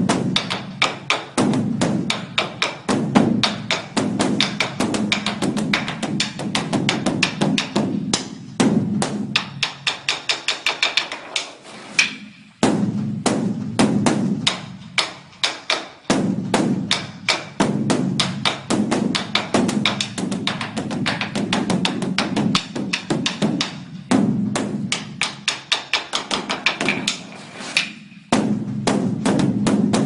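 Beopgo, the large Buddhist dharma drum, beaten with two sticks in a fast, continuous run of strokes over the deep ringing boom of its head, pausing briefly a few times.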